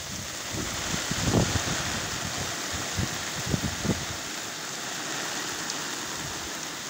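Heavy rain pouring steadily over a flooded rice paddy, with gusts of wind buffeting the microphone in low rumbles about a second in and again around three to four seconds in.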